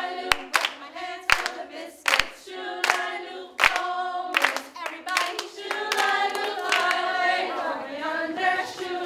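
A group of women singing a song together, clapping their hands on the beat through the first half. The clapping drops out about halfway through while the singing carries on.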